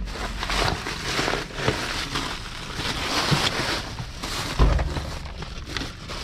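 Plastic bags and cardboard packaging rustling and crinkling as a gloved hand rummages through discarded food packages, with a dull thump about four and a half seconds in.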